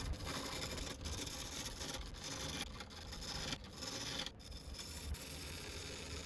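Sandpaper rubbing against a resin-and-wood blank spinning on a wood lathe: a steady rasping hiss, broken by brief gaps every second or so where the paper lifts off.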